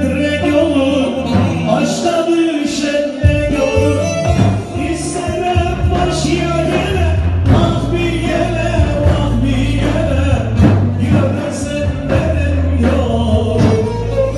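Music with singing over a steady, continuous bass line.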